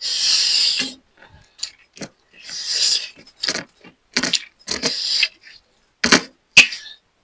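Close-miked eating sounds: two longer noisy bursts of chewing and handling food, then a series of short sharp clicks and knocks in the second half.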